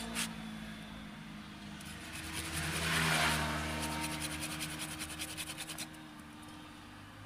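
A pruning saw cuts into the woody trunk of a Premna microphylla bonsai: a quick, even run of rasping strokes, about six a second, from about two seconds in to about six seconds. A motor vehicle's engine runs low underneath.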